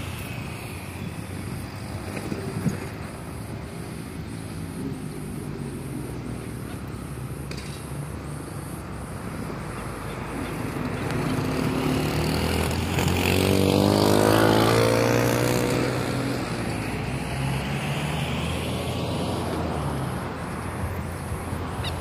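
Road traffic: a steady low rumble of vehicles, with one motor vehicle passing close, swelling from about halfway through to its loudest about two-thirds of the way in, its engine note sliding as it goes by, then fading.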